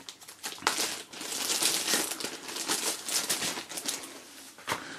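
Packaging being handled: crinkling and rustling with many small clicks and taps, loudest in the middle, with a sharp click near the end.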